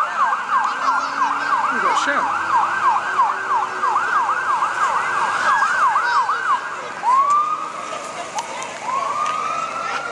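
Electronic emergency-vehicle siren on a fast yelp, sweeping up and down about three times a second, which stops after about six and a half seconds. It then gives one short rising whoop and, near the end, starts a slow wail.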